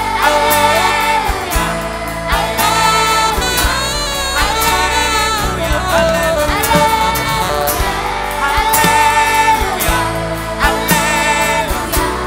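Gospel choir singing a song with band accompaniment: held vocal lines over bass and a steady drum beat.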